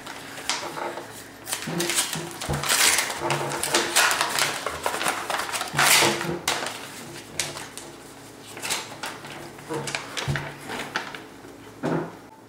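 Paper envelope being ripped open by hand in a series of tears and crackles, then the folded letter inside rustling as it is pulled out and opened.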